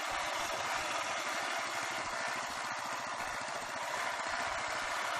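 Motorcycle engine running at a low, steady pace on a sandy lahar trail, its firing pulses under a steady hiss.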